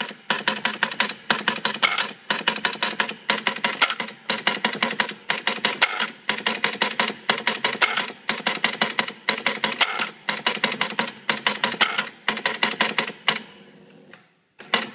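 Gottlieb Gypsy Queen electromechanical pinball mechanism cycling by itself: relays and switches clicking rapidly in about a dozen bursts of roughly a second each, with a steady hum beneath. It quits a little after thirteen seconds in, with one short burst of clicks near the end.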